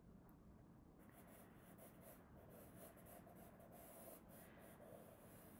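Wooden pencil faintly scratching on paper in sketching strokes, drawing the outline of a round shape; it starts about a second in.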